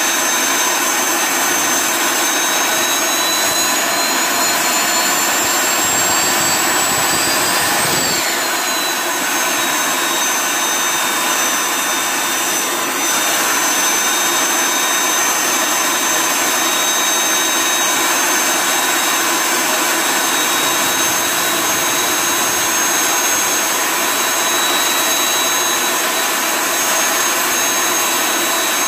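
Homemade turbocharger burn barrel running on unfiltered waste oil: a steady jet-like roar with a high turbo whine. The whine climbs for several seconds, drops back about eight seconds in, then holds steady.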